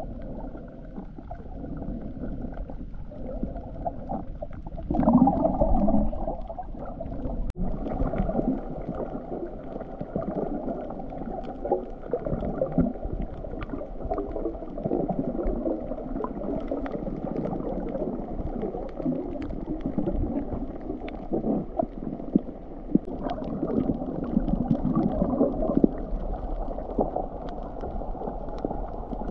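Muffled underwater sound picked up through a camera's waterproof housing: water sloshing and gurgling with uneven louder surges and a few faint clicks.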